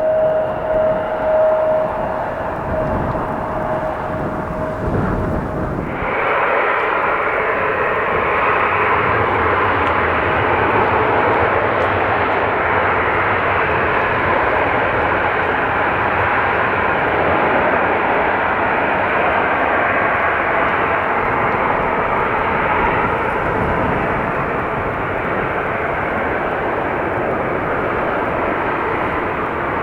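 Aircraft engine noise at an airport. For the first few seconds a steady high whine fades away under gusty wind rumble on the microphone. About six seconds in it changes suddenly to a louder, steady engine noise that carries on.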